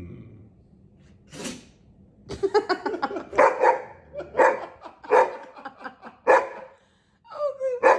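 A dog sneezes once with a sharp, noisy blast, then barks repeatedly in a run of loud barks.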